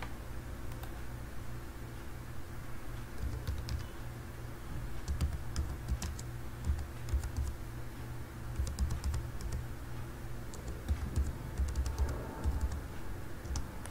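Computer keyboard keys clicking in short, irregular runs of typing, starting a few seconds in, over a steady low hum.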